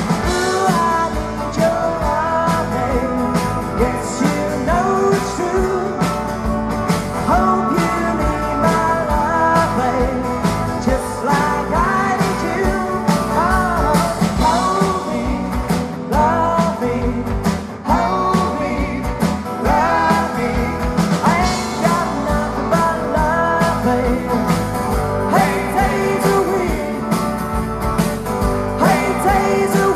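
Live rock band playing a song: a male lead vocal over acoustic and electric guitars, keyboard and drums with a steady beat.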